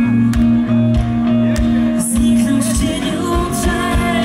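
Live pop-rock band playing loudly, with regular drum beats and guitar over a held low note that gives way about two and a half seconds in, as heard from the audience.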